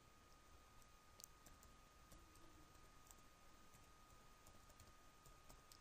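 Very faint computer keyboard typing: scattered soft key clicks at an uneven pace over near-silent room tone, with a faint steady high whine.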